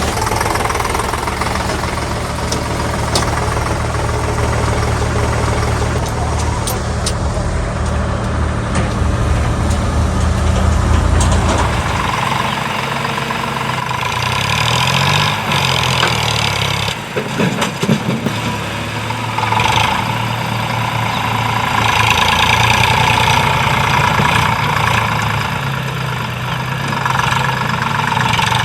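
Tractor diesel engine running while the backhoe attachment loads mud. About twelve seconds in, the deep low throb falls away and a higher sound that rises and falls takes over.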